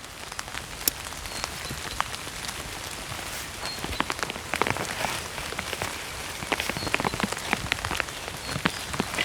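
Rain falling, with many sharp individual drop hits that grow denser about four seconds in.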